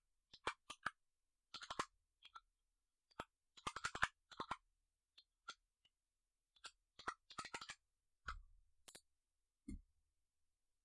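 Computer keyboard keys clicking as a password is typed, in quick uneven runs of keystrokes, with two duller knocks near the end.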